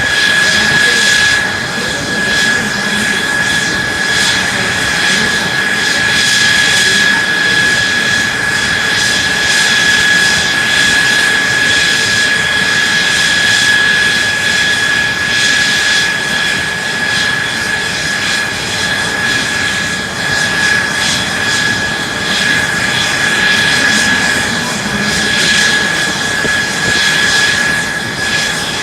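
Mitsubishi F-2 fighter's F110 turbofan jet engine running steadily on a ground run, a loud, unchanging high whine over a rushing hiss.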